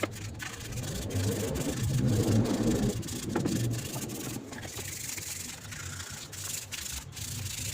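Rubbing and scraping hand work, louder and rougher between about one and a half and three and a half seconds in, with scattered clicks and knocks.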